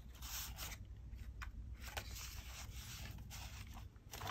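Hands handling the card-stock tags and pages of a handmade junk journal: faint rustling and scraping of paper, with a light tap near the end.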